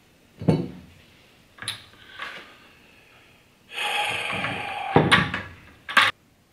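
Knocks and clatter of plastic siphon gear, a racking cane and tubing bumped against a glass gallon jug and plastic bucket, while a siphon is being started: a sharp knock about half a second in, a few lighter clicks, a rushing noise lasting a little over a second, then more knocks near the end.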